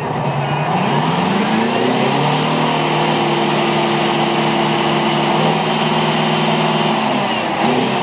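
Well-servicing pulling unit's engine revs up about two seconds in and runs at high speed for several seconds while the rig hoists a joint of tubing from the well, then drops back just before the end.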